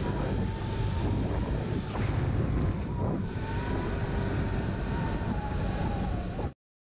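Small 50cc four-stroke engine of a Honda Vision 50 moped scooter running at road speed, under heavy wind buffeting on the onboard microphone, with a steady thin whine above the rumble. The sound cuts off abruptly near the end.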